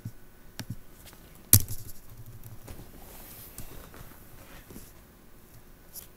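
A few scattered clicks and taps on a laptop's keys and trackpad, the sharpest and loudest about a second and a half in, with fainter ticks after it.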